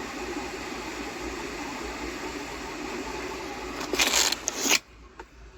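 Volkswagen Tiguan HVAC blower motor running steadily with a rush of air, turning freely again after its fan had been stuck. About four seconds in there is a brief loud noise, then the blower sound cuts off suddenly.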